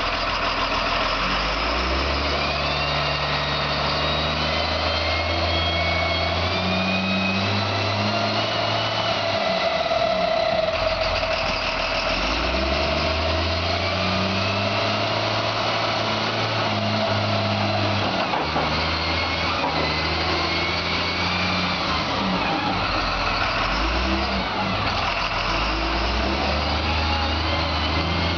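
Cat 938G wheel loader's diesel engine working as the machine drives and turns, its revs rising and falling repeatedly, with a high whine that climbs in pitch over the engine note.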